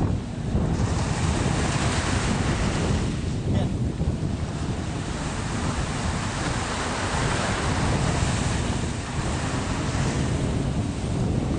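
Wind buffeting the microphone, a steady rushing noise with heavy low rumble, over the wash of sea surf.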